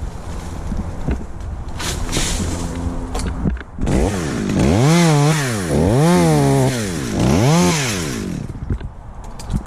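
Chainsaw running low, then revved up and back down three times in quick succession.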